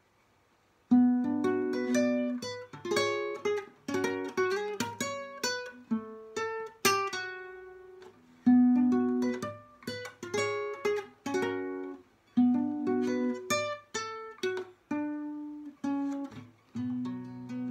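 Nylon-string classical guitar fingerpicked solo, starting about a second in: a rhythmic run of plucked bass notes and chords, each ringing and dying away.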